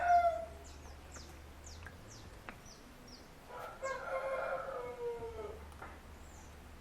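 A rooster crowing: the tail of one crow right at the start, then a full crow of about two seconds beginning a few seconds in that drops in pitch at its end. Small birds chirp throughout.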